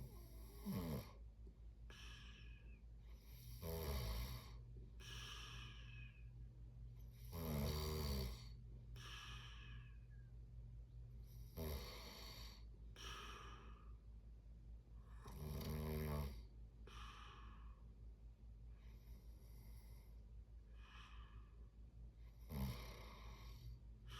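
Person snoring in sleep: six low, rough snores a few seconds apart, each followed by a softer breathy breath, over a steady low hum.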